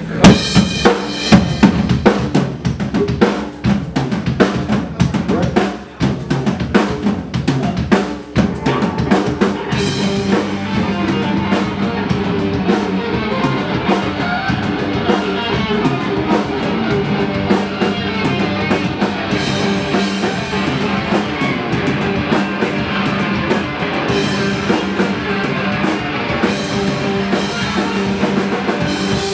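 Live rock band playing: hard drum-kit hits lead for about the first ten seconds, then bass and electric guitars fill in a steady, dense groove.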